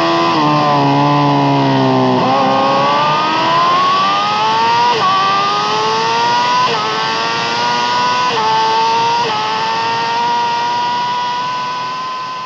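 Yamaha R6's inline-four engine with an Akrapovic exhaust, heard onboard with wind rush. It slows into a corner for about two seconds, then accelerates hard through four quick upshifts, each a short dip in pitch, then holds a steady high rev and fades out near the end.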